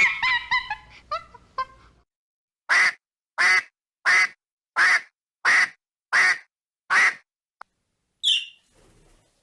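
Duck quacking: seven harsh quacks in an even series, about one every 0.7 s, after a couple of seconds of shorter, higher calls.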